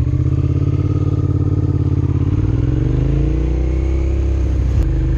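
Motorcycle engine pulling away and accelerating, its pitch climbing steadily, then dropping abruptly near the end as it shifts up a gear.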